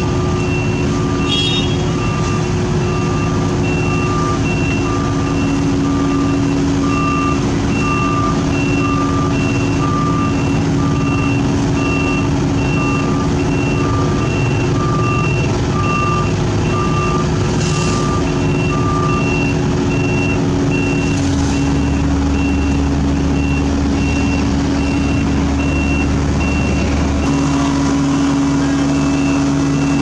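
Diesel engines of a Sumitomo asphalt paver and a dump truck running steadily, with two back-up alarms beeping about once a second at different pitches. The lower-pitched alarm stops about two-thirds of the way through and the higher one near the end, and a deeper engine rumble sets in about two-thirds of the way through.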